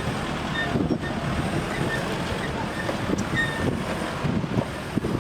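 Off-road vehicle running over rough ground, with wind buffeting the microphone as an uneven low rumble; a few faint short chirps are heard over it.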